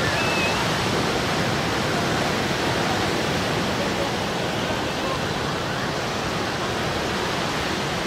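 Small Pacific waves breaking and washing up a sandy beach: a steady rush of surf.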